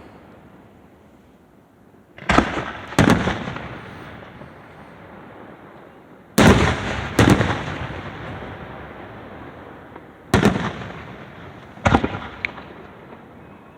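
Aerial fireworks bursting in a show: six loud booms, mostly in pairs a little under a second apart, each trailing off in a rolling echo.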